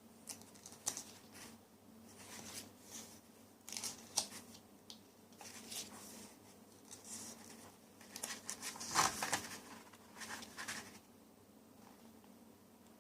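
Paper and packaging being handled: a series of brief rustles and crinkles, the loudest about nine seconds in.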